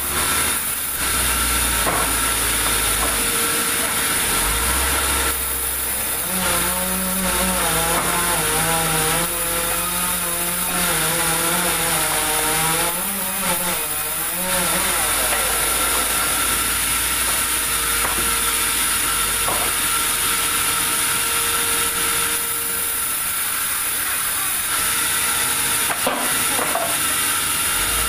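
Sawmill saw running steadily while it cuts a large meranti hardwood log, a constant mechanical whine over a noisy hiss.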